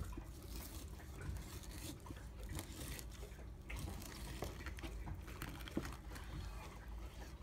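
Chef's knife cutting between smoked beef plate ribs on a wooden cutting board: faint, scattered scrapes and light taps of the blade working through the meat.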